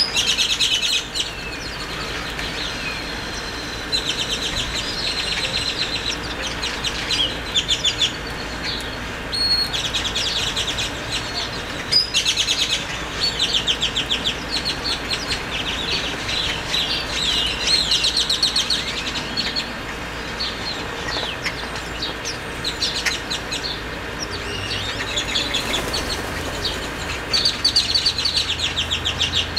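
Great-tailed grackles calling: short runs of rapid clicking rattles, about a second each, repeated many times and mixed with rising whistles.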